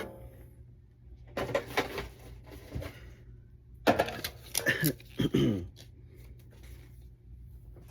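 Paper and card items from a boxed collector set being handled: rustling with light taps and knocks, in two short spells about a second and a half in and around four seconds in, over a low steady hum.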